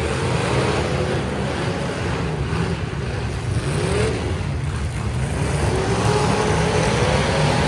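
Several demolition derby car engines revving and running at once in the arena, their pitches rising and falling over one another.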